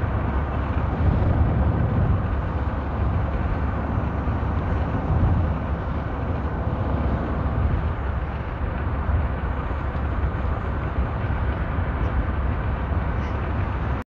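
Steady low rumble of a moving car, heard from inside the cabin while it drives along a highway.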